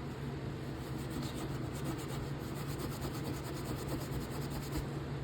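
Quick, even rubbing strokes scrubbing rust off a folding knife, stopping just before the end, over a steady low hum.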